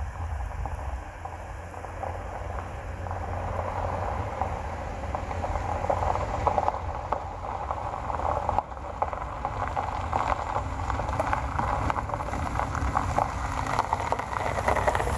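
Pickup truck driving on an unpaved forest road: a steady low engine and road rumble with a dense crackle of tyres over loose gravel and grit.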